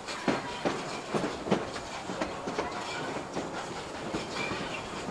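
Steam-hauled passenger train in motion: the carriage wheels clack over the rail joints in a quick, uneven run of knocks, loudest in the first second and a half, over a steady running rumble.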